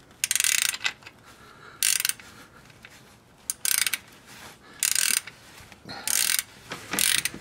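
Ratchet wrench clicking through six short back-strokes, roughly one a second, as a bolt is turned into the stripped threads of a transmission-case drain hole.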